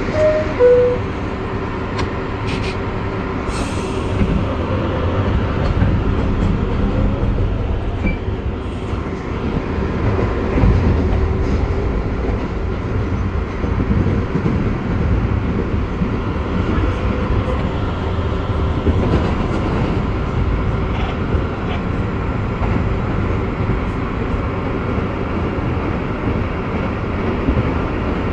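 An R62A subway car running along the track, with steady wheel and rail noise. A two-note falling chime sounds right at the start.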